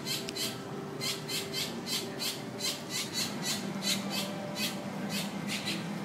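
Birds squawking in a quick, uneven run of short harsh calls, two to four a second.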